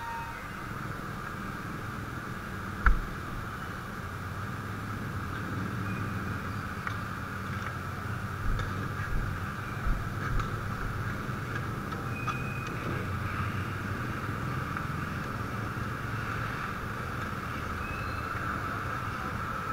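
Steady, muffled motor-vehicle engine noise, with one sharp knock about three seconds in and a few softer thumps around eight to ten seconds.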